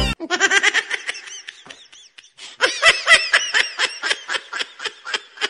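High-pitched laughter in quick, rhythmic bursts, in two runs with a short break about two seconds in.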